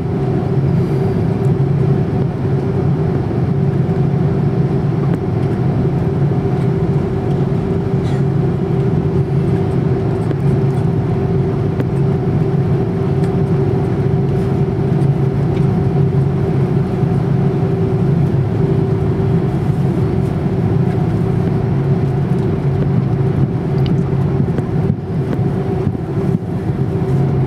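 Steady cabin hum of an Airbus A330-300 taxiing, heard from a window seat over the wing, with a few low tones held throughout. The aircraft has Rolls-Royce Trent 700 engines.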